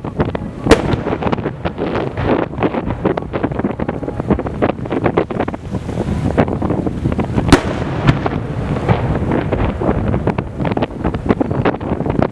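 Aerial fireworks shells bursting in quick succession: a dense, continuous crackling barrage. Two sharper bangs stand out, one just after the start and one about seven and a half seconds in.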